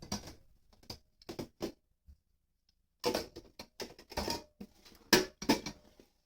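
Objects being handled at close range: an irregular series of sharp clicks, knocks and rustles, bunched in two clusters with a short pause between.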